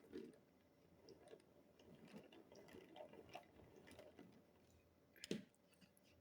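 Faint, irregular clicks and taps of plastic LEGO parts, with one sharper click about five seconds in.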